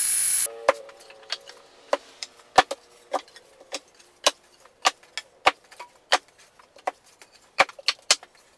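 An Erbauer bench belt and disc sander runs for about half a second, then cuts off. After that come sharp wooden clacks, one or two a second, as sanded pallet-wood slats are set down on a table and knocked together into a row.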